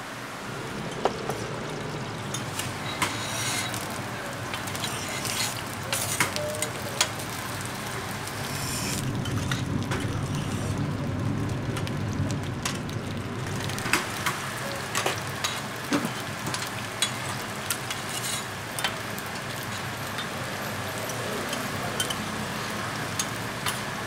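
Rice cakes sizzling as they pan-fry on a steel flat-top griddle. Metal spatulas click and scrape against the plate many times, at irregular intervals.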